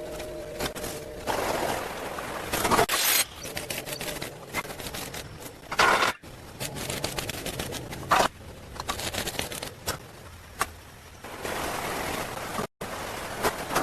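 Hand building work: irregular scrapes and knocks, with a few louder bursts about 3 s, 6 s and 8 s in, broken by sudden cuts about 6 s and 13 s in.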